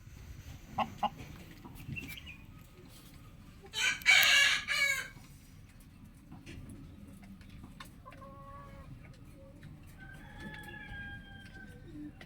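Roosters crowing: a short pair of clucks near the start, then one loud crow about four seconds in lasting about a second, and two quieter crows in the second half, over a low steady background rumble.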